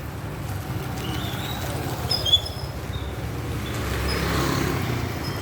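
Road traffic: a steady engine rumble, with a vehicle passing and growing louder about four seconds in, and a few short high chirps.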